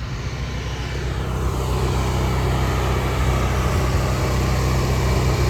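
Pressure washer's engine running steadily, with a hiss of spraying water building over the first couple of seconds.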